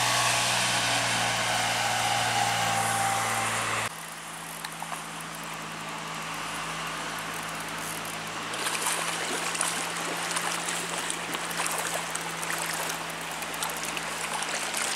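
Creek water running steadily over rocks. It drops suddenly in level about four seconds in, and from about halfway on there are irregular splashes from a hooked brown trout thrashing at the surface.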